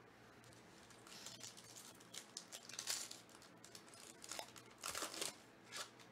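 Foil wrapper of a sealed trading-card pack being torn open and crinkled by hand: faint crackling and tearing in irregular bursts, loudest about halfway through and again near the end.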